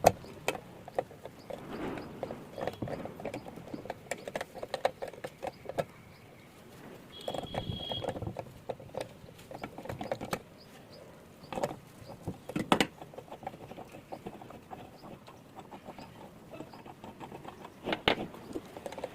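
Irregular clicks, knocks and scraping of metal parts and tools being handled during a water pump repair, with a brief high steady tone a little after seven seconds and a few sharper knocks later on.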